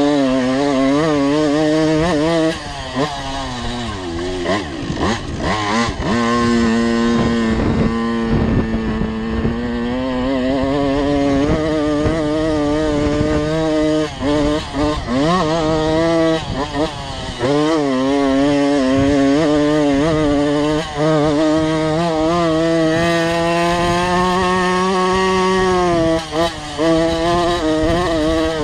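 Tomos automatic two-stroke engine on a small motocross bike, revving up and down as it is ridden, its pitch rising and falling with brief drops when the throttle is closed. It does not run very cleanly, which the rider puts down to the wrong carburettor jet.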